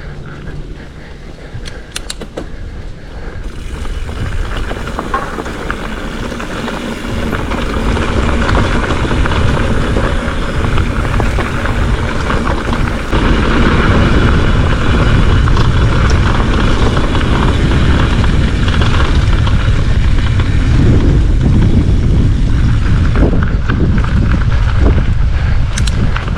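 Wind rushing over the action-camera microphone and tyres rumbling on dirt singletrack as a hardtail mountain bike rides along, getting louder over the first half and then staying loud. A few sharp clicks or rattles near the start and again near the end.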